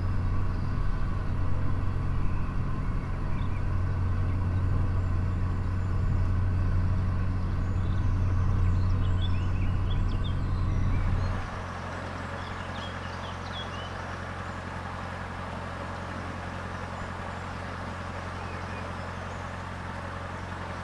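Narrowboat's diesel engine running steadily while cruising, a low even hum. About eleven seconds in it drops noticeably quieter. A few faint bird chirps sound over it.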